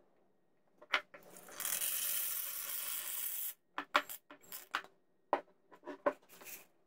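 White vinegar pouring out of a steel hydraulic cylinder tube into a plastic bucket for about two seconds, then a scatter of sharp clicks as copper BBs drop out of the tube into the bucket.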